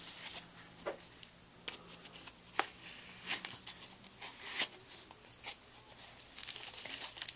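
A flashlight holster being handled: light rustling with scattered small clicks and scrapes.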